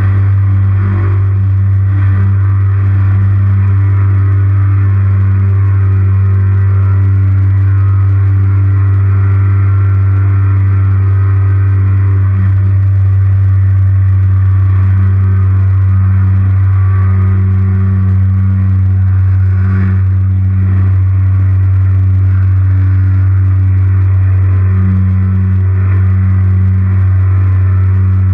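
Super 70 flex-wing microlight trike's pusher engine and propeller running steadily in flight, a constant loud low hum.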